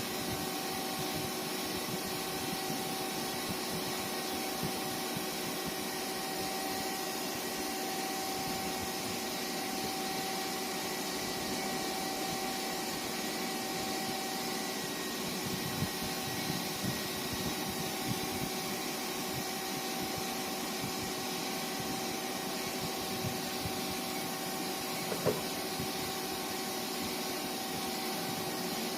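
Murata MW100 twin-spindle CNC lathe running: a steady hum and hiss with a couple of held tones, and a single short click about 25 seconds in.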